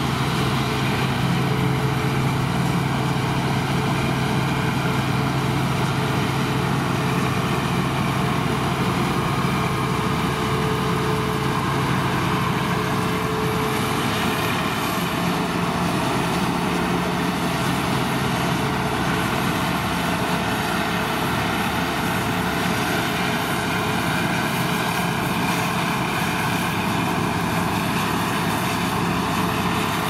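New Holland TX65 Plus combine harvester at work harvesting barley: its engine and threshing machinery running with a steady drone and whir.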